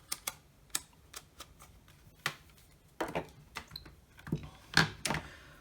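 Scattered light clicks and knocks, about a dozen at irregular intervals, of small hard objects being picked up and set down on a workbench, as a test meter and its leads are handled.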